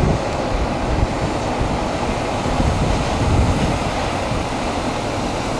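Parked fire engine's diesel engine idling: a steady, loud rumble.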